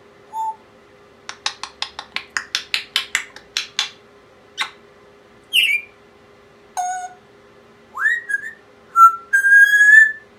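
Pet parrot vocalizing: a short note, then a quick run of about a dozen clicks, then a falling chirp, a rising whistle and a held whistle near the end.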